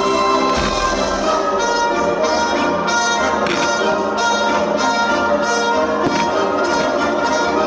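Orchestral music led by brass, played loud over a fireworks display, with a fast series of sharp bangs, about three a second, from about a second and a half in, and short rising whistles.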